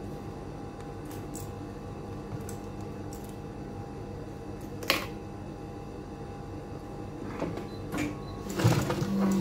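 Protex industrial sewing machine: a steady low hum with a few light clicks while the fabric is set under the foot, then the machine starts stitching about eight and a half seconds in.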